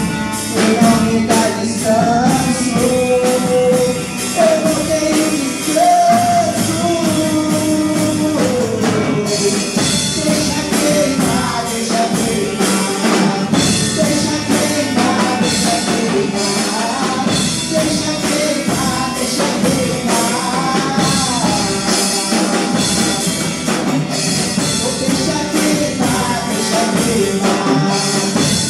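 Gospel song with a sung melody over a band with drum kit and guitar keeping a steady beat.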